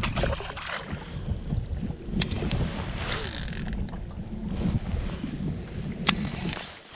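Wind buffeting the microphone in a low, uneven rumble, with a couple of sharp knocks.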